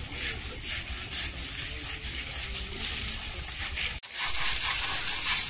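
Hose water spraying and splashing on a bathing elephant's hide and the wet concrete, a steady hiss. It breaks off for an instant about four seconds in and comes back louder.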